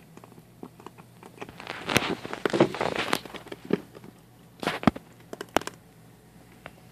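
A cat biting and chewing on the green gum-massager nub of a plastic cat massage center: irregular crunching and clicking, densest about two to three seconds in, with a few sharp clicks around five seconds.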